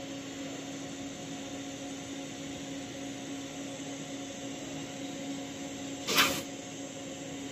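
TIG welding on stainless steel pipe: a steady hiss with a low hum from the lit arc and welding machine while a tack weld is laid with hand-fed filler rod. About six seconds in, a brief, louder burst of noise.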